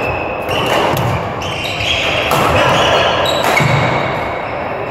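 Court shoes squeaking again and again on a sports hall floor during a badminton rally, with knocks and thuds from footwork and racket strokes, echoing in a large hall.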